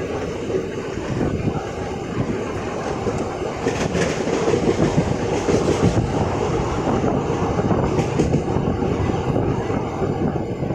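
Train running along the track, heard from on board: a steady rumble of wheels on rails with clattering, and a couple of louder clacks partway through.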